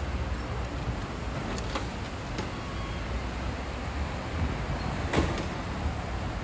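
City street traffic rumbling steadily, with a few sharp clicks or knocks, the loudest about five seconds in.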